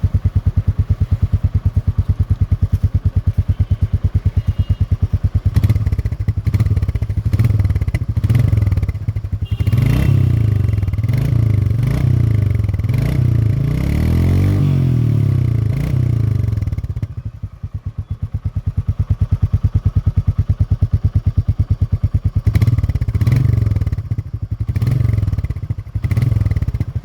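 Single-cylinder motorcycle engine and exhaust idling with an even, rapid thump. It is blipped and revved up and down several times in the middle, settles back to idle, then is revved again near the end.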